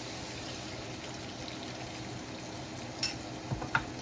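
Adobo marinade of soy sauce and vinegar sizzling in a hot pan with sautéed onions after being poured in, a steady hiss. Two short clicks come about three seconds in.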